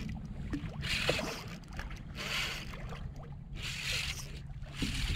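Spinning reel's drag paying out line in short zipping bursts, about every second and a half, as a hooked fish pulls against the bent rod.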